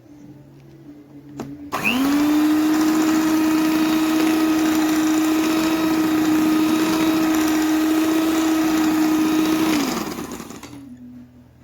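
Electric hand mixer switched on with a click about two seconds in, spinning up to a steady whine while beating a creamy cake-dough mixture, then switched off near the end and winding down.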